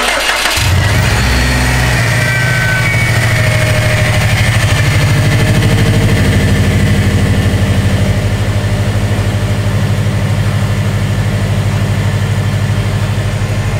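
A 2018 Subaru WRX STI's turbocharged 2.5-litre EJ25 flat-four fires up about half a second in and settles into a steady fast idle just after starting.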